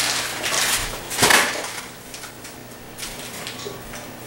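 Bags of flour and oats being handled, with the packaging rustling and crinkling; the loudest crinkle comes about a second in, followed by fainter rustles.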